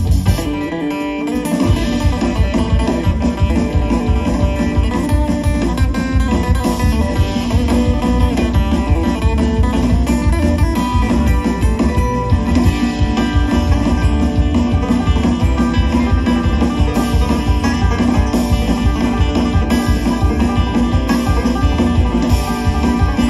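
String band playing an instrumental break: acoustic guitar and banjo over bass and drums, with no singing. The bass and drums drop out for about a second just after it begins, then come back in.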